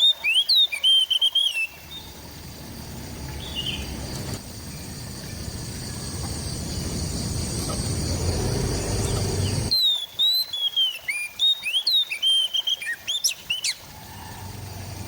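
Oriental magpie-robin singing a quick run of whistled, sliding notes, broken for about eight seconds by a low rumbling noise that swells and then cuts off suddenly, after which the song resumes in a second fast burst.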